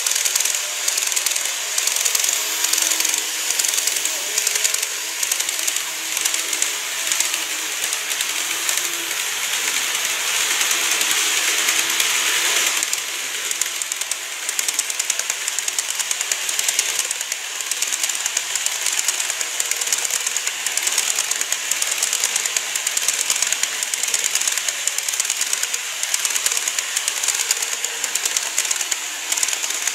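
Model electric trains running on sectional track: rapid clicking of the wheels over the rail joints with a steady hiss of running gear, and a faint motor hum in the first half. A KATO E231 series set pulls away while a TOMIX 103 series set comes round the curve and passes.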